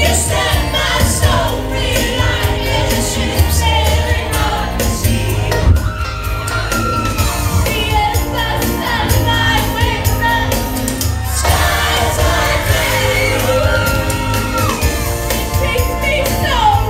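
A woman singing karaoke into a microphone over a loud dance backing track with a heavy, steady bass line.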